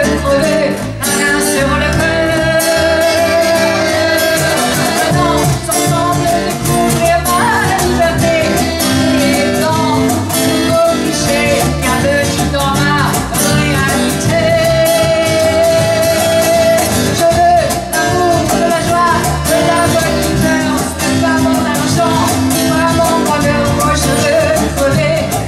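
A woman sings a song into a microphone with a small live band, accordion and guitar playing along over a steady beat.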